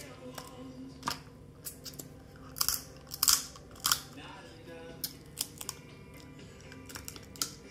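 Snow crab leg shells cracking and snapping as they are broken open by hand and bitten, with some chewing; a series of sharp cracks, the loudest a cluster in the middle.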